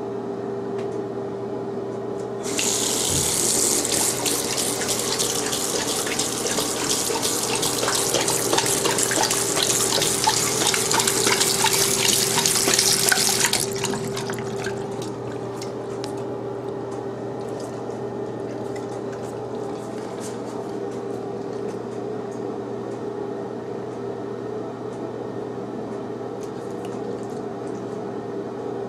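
A bathroom sink faucet is turned on about two seconds in and runs for about eleven seconds while a German Shorthaired Pointer laps at the stream. After the tap shuts off there is a few seconds of wet lapping in the basin. A steady low hum sits under it all.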